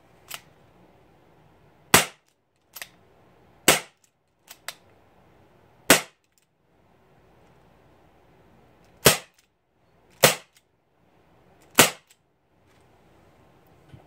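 Crosman SR 357 CO2 BB revolver firing six shots, each a sharp pop, unevenly spaced over about ten seconds, with fainter clicks between the first few shots. It is shooting BBs in single and double action, on a CO2 cartridge running kind of low.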